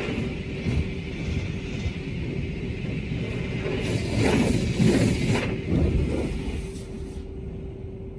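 Water spray pelting the windshield and body of a car in an automatic tunnel car wash, heard from inside the car over a steady low rumble and hum. The spray grows heavier about four seconds in and cuts off about seven seconds in.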